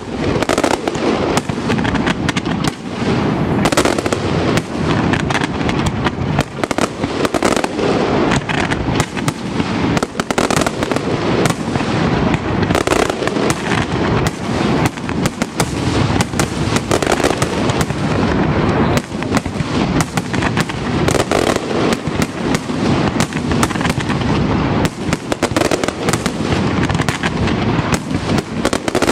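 Aerial fireworks display: shells bursting and comets launching in a dense, unbroken barrage of many overlapping sharp bangs.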